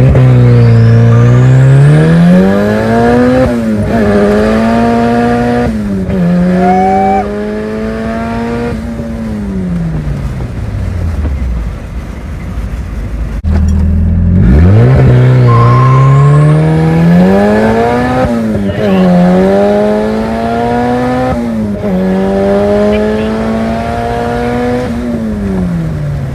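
Turbocharged Honda Del Sol accelerating hard through the gears in two separate runs. In each run the engine pitch climbs steeply, drops suddenly at each of two upshifts, then falls away as the car slows, with a faint high whistle rising with the revs at the start of each pull.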